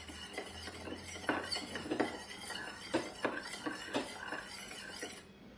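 Toothpaste and water being stirred in a container, the utensil clinking and scraping against its side in irregular taps.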